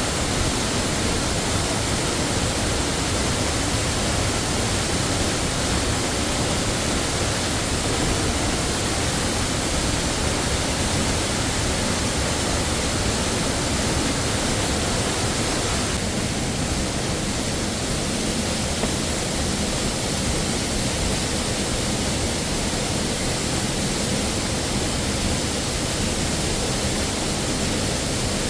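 Waterfall: a steady, even rush of falling water, slightly duller in tone from about halfway through.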